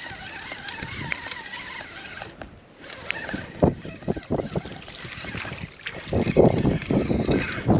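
Hooked fish splashing and thrashing at the water's surface as it is reeled in to the bank, the splashing loudest in the last couple of seconds.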